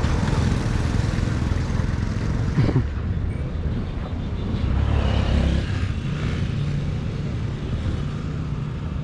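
Motor vehicles driving past on a dusty, unpaved road, a steady engine rumble with a brief sharp sound about two and a half seconds in.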